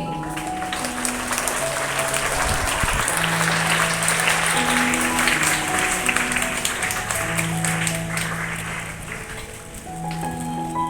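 Audience applauding over a slow instrumental background tune. The clapping dies away about a second before the end while the music plays on.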